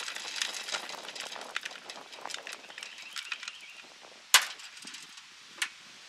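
Wood pellets trickling out of a pellet smoker's hopper into a plastic bucket, a dense patter of small clicks that thins out and fades. About four seconds in comes a sharp click, the loudest sound, and a smaller one about a second later.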